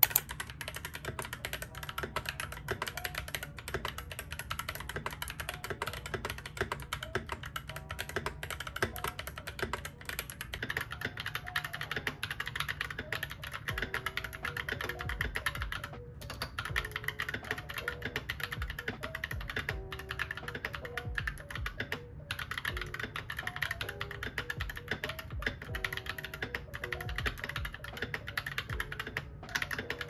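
Continuous typing on a Royal Kludge RK89 mechanical keyboard fitted with Holy Panda tactile switches and 9009 retro keycaps: a steady stream of quick, irregular key clacks. Soft background music plays underneath.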